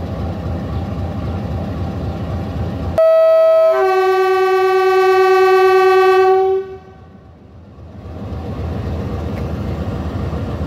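A diesel locomotive's air horn gives one long departure blast as the train pulls out. It sounds about three seconds in, starting on a higher note and dropping after a moment to a lower one, and cuts off after about three and a half seconds. A steady low rumble from the train runs under it, dips briefly after the horn, then returns.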